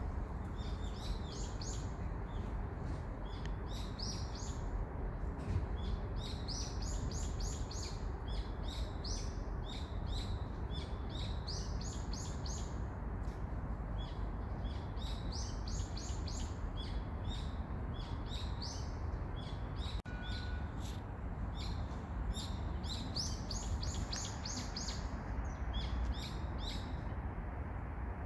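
Small songbird singing: repeated bursts of quick, high chirps every few seconds, over a steady low background noise.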